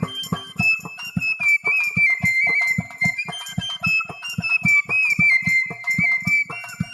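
Bamboo flute (bashi) playing a slow, sad Bengali folk melody with sliding ornamented notes, over a steady drum beat.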